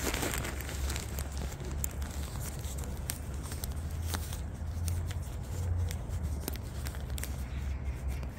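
Light, scattered crackling and crinkling over a steady low rumble.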